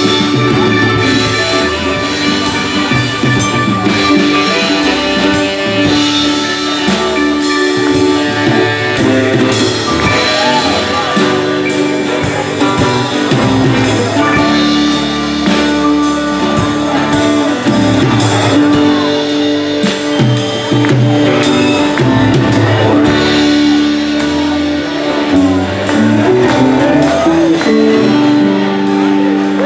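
Live band playing a song: guitars and a drum kit with regular beats under long held notes from saxophone and keyboard.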